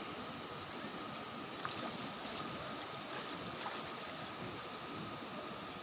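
Fast-flowing floodwater rushing and churning: a steady, even noise with a faint steady high tone under it.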